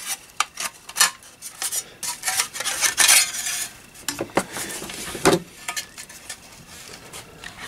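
Sheet-metal clinks, scrapes and knocks as the chassis of a Heathkit GD-1B grid dip meter is slid out of its metal case and both are set down. The clicks are irregular, with a longer scrape about three seconds in and a few knocks between four and five and a half seconds.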